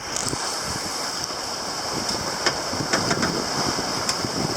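Steady rush of wind and water aboard a Mumm 36 racing sailboat under way, with a few faint ticks through it.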